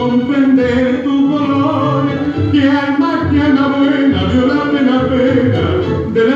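Recorded Argentine tango music played over loudspeakers in a reverberant hall, with a sung vocal over the orchestra and a pulsing beat.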